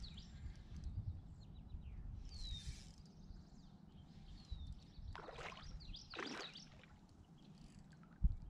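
Hooked smallmouth bass splashing at the surface twice, about five and six seconds in, over a low rumble. A bird gives a short falling whistle a couple of seconds in, and a sharp low thump comes near the end.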